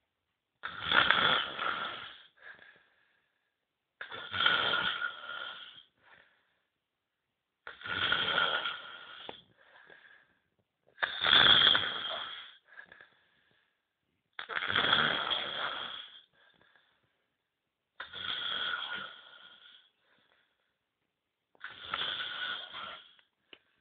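A man snoring in a steady rhythm: seven snores, one every three and a half seconds or so, each lasting about a second and a half, with silence between them.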